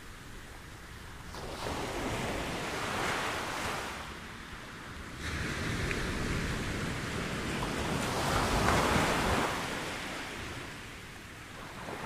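Ocean surf breaking and washing up a beach in two surges: one swells about a second and a half in and fades by four seconds, and a louder one starts about five seconds in, peaks near nine seconds and ebbs away.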